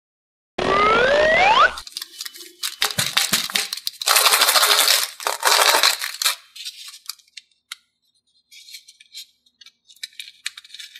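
A short sound effect with rising whistling glides, then crackly crinkling and rattling from handling a foil-wrapped plastic surprise egg, loudest a few seconds in. Fainter crinkles follow near the end as the foil is peeled off the egg.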